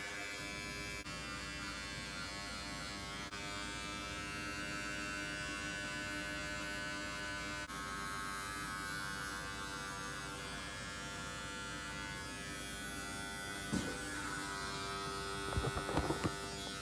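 Electric hair trimmer running with a steady buzz as it shaves body hair. A few knocks of handling near the end.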